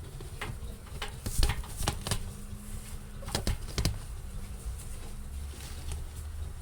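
A ferret scrabbling and rummaging inside a washing machine drum: quick clicks and knocks in two clusters, the first from about half a second to two seconds in and the second around three and a half seconds. A steady low hum runs underneath.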